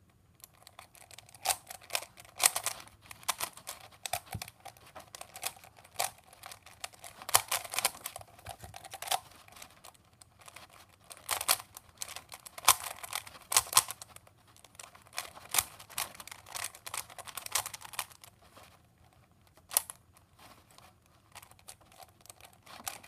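Plastic Rubik's cube being turned by hand: quick, irregular clicks of the layers snapping round, in bursts with short pauses between them.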